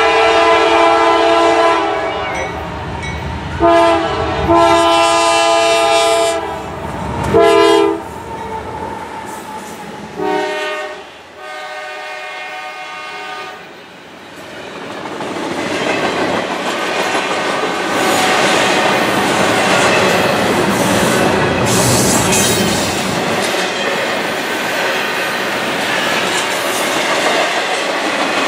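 A CSX freight locomotive's air horn blows the grade-crossing signal of long, long, short, long, with the last long blast fainter. The double-stack container train then rolls past with a loud, steady rumble and clickety-clack of wheels over the rail joints.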